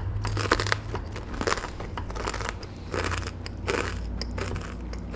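Kitchen knife chopping Kalamata olives on a wooden cutting board: a run of irregular cuts, the blade crunching through the olives and tapping the board.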